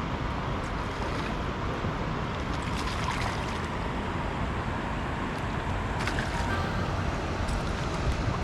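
Steady outdoor noise of wind buffeting the microphone over flowing river water, with a faint click about six seconds in.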